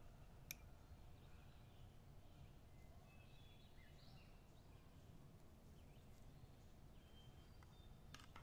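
Near silence: a faint low background hum with a few faint distant bird chirps. A single sharp click of a metal spoon on a ceramic bowl comes about half a second in, and a couple of spoon clinks against the bowl come right at the end as stirring starts.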